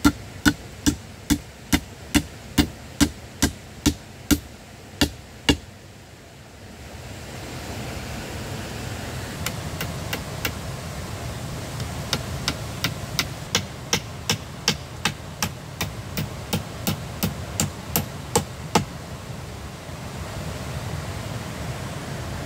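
Rapid, even blows of a hand tool striking wood, about two or three a second, in two runs: the first stops about five and a half seconds in, the second runs from about nine and a half seconds to nineteen. A steady rushing hiss comes up about seven seconds in and stays under the second run.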